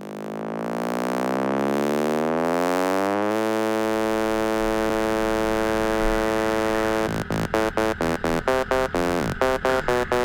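Electronic dance music intro: a synthesizer note sweeps up in pitch for about three seconds, then holds steady, and about seven seconds in is chopped into a fast rhythmic stutter.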